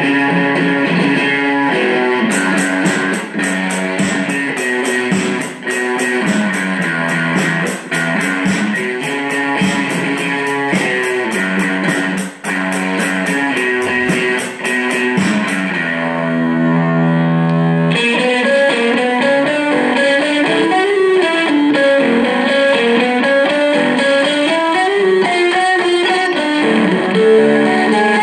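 Electric guitar playing a repeating riff over a steady high ticking beat. About two-thirds through the ticking stops and a single note or chord is held and left ringing. After that the guitar plays a single-note line that winds up and down in pitch.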